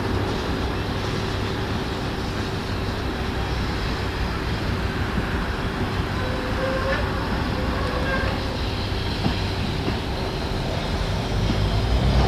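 Tram car rolling slowly along the track: a steady hum with running rumble, the low rumble growing louder near the end.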